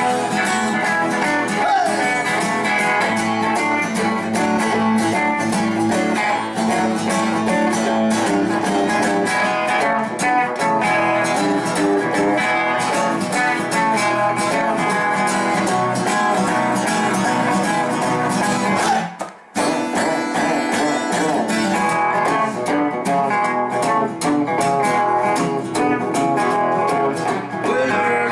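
Instrumental guitar music: a strummed acoustic guitar with a Fender Telecaster electric guitar playing along. The sound drops out briefly about two-thirds of the way through.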